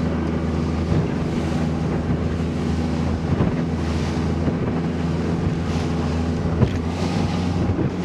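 Bass boat's outboard engine running steadily at speed through rough water, with wind buffeting the microphone and water rushing past. There is a sharp thump about six and a half seconds in as the hull hits a wave.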